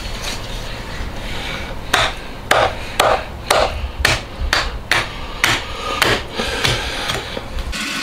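A kitchen knife cutting through a raw rack of donkey ribs, a quick run of cutting strokes about two a second, starting about two seconds in.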